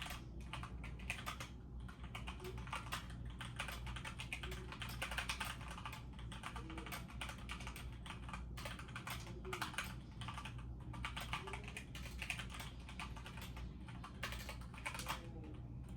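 Typing on a computer keyboard: a rapid, continuous patter of key clicks with a few brief pauses.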